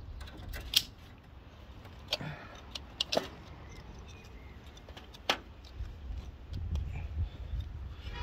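Scattered clicks and light metal-on-metal rattles of parts and ignition leads being handled and pushed back onto the distributor of a Ford 2.3 V6, with a low rumble near the end.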